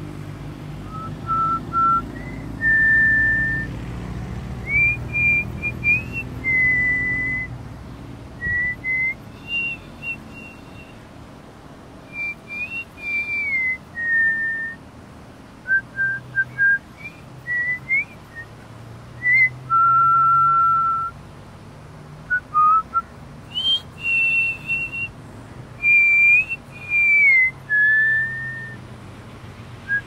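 A person whistling a slow tune, one clear note at a time, some held and some sliding between pitches, in short phrases. A low hum runs underneath.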